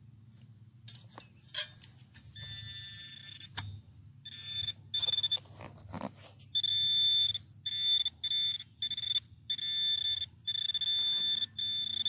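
Hand-held metal-detecting pinpointer buzzing in on-off pulses as it is probed into a dug hole, signalling metal close by. The pulses grow longer about halfway through. A few sharp clicks from the digging come before the buzzing starts.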